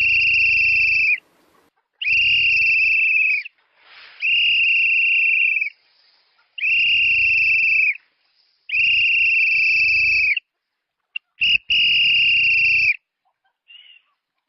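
A shrill whistle tone blown six times at the same high pitch, each blast held about a second or more with short breaks, followed by two brief chirps near the end.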